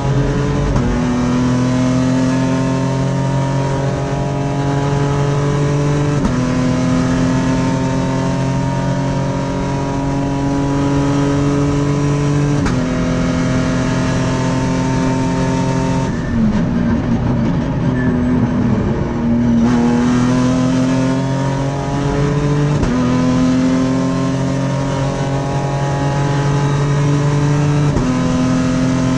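V6 race car engine heard from inside the cockpit, pulling hard through the gears: the revs climb steadily and fall sharply at each quick paddle-shift upshift, three in the first half. About halfway through it lifts off for a few seconds with the revs low and wavering for a corner, then climbs again through two more upshifts.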